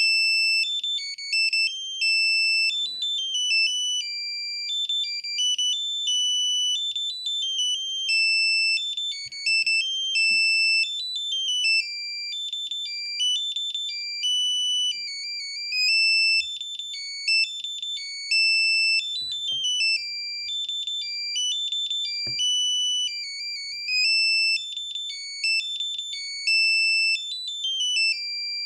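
Samsung SGH-N710 mobile phone playing a ringtone through its own speaker: a fast melody of high electronic beeps, one note at a time.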